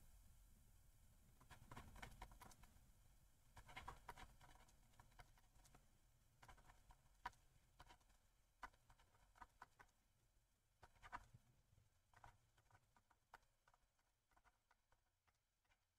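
Faint taps and scratches of a stylus writing on a tablet screen, coming in short clusters of small ticks.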